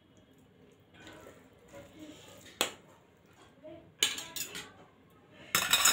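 Metal spoon and fork clinking and scraping on a stainless steel plate of noodles. There is one sharp clink about two and a half seconds in, a quick run of strikes at about four seconds, and a louder cluster near the end, with quieter eating sounds between them.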